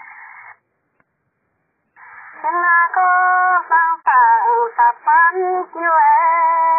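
A voice singing a slow melody with long held notes and gliding turns. It stops for about a second and a half near the start, then comes back in.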